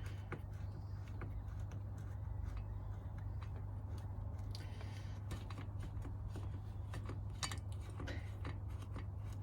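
Faint, irregular metal clicks and ticks of hand tools and bolts as the brake caliper bolts are threaded in and tightened, over a steady low hum.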